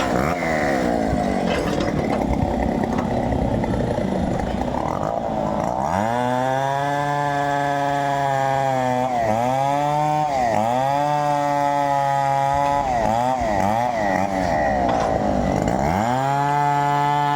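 Two-stroke chainsaw running at high revs. For about the first six seconds it sounds rough and labouring, as when cutting into wood. Then it runs freely at a steady high pitch, with the throttle eased off and opened again several times.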